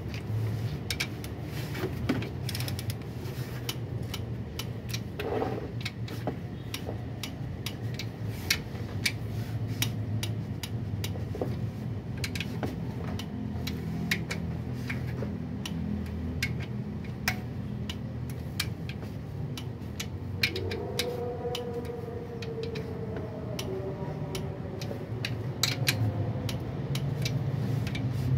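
Metal hand tools clicking and clinking at irregular intervals during mechanic work, over a steady low hum.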